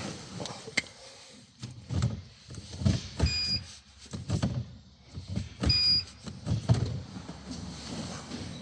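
Plastic knocks and clunks as an air box is worked back into place in a car's engine bay, with two short high squeaks in the middle.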